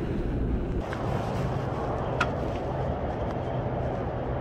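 A vehicle engine running steadily, a low hum under outdoor noise, with one short high chirp about two seconds in.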